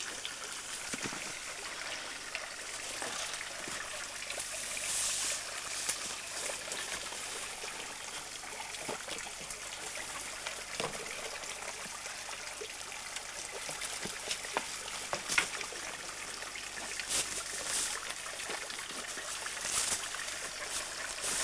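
Small stream trickling and running over stones, a steady hiss of water, with a few brief clicks now and then.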